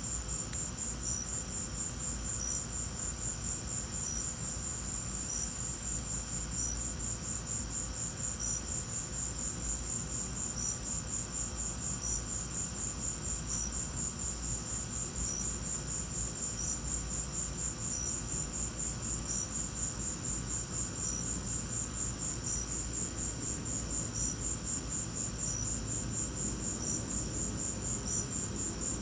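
Crickets chirping at night: a continuous high trill, with a second, slower chirp repeating at an even pace about every second and a bit.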